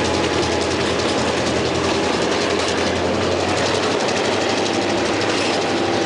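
Diesel freight locomotive passing with its engine running and steady rail noise from the wheels. The low engine hum fades about four seconds in as the freight cars follow.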